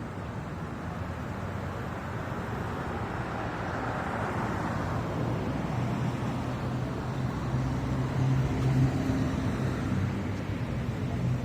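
Cars passing on a street: the tyre noise of one car swells and fades about four or five seconds in, then a low engine hum builds and is loudest a little before the end.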